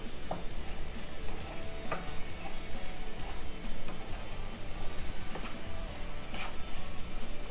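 Chicken and grated coconut sizzling in a frying pan while a spatula stirs them. A few short, sharp scrapes of the spatula against the pan stand out.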